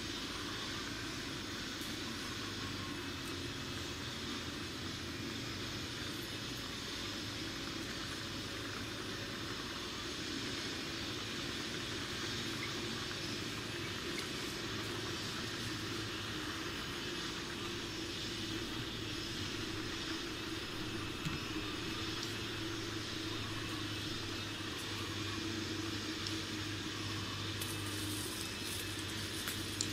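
Steady background hum: a constant low drone with a faint high hiss over it, unchanging throughout.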